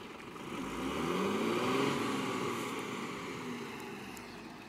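Loaded Tata truck's diesel engine revving up under load and then easing off, its pitch and loudness rising and then falling over about three seconds as it pulls up a dirt slope.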